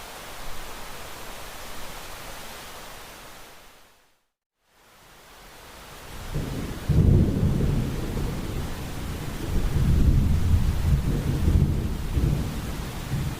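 Rain falling with a steady hiss that fades out to a brief silence about four seconds in. The rain then returns with thunder rumbling low and swelling in uneven waves.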